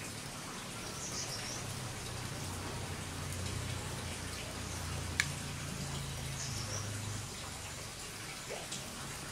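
Firewood fire crackling, with scattered faint ticks and one sharp pop about five seconds in, over a low steady hum.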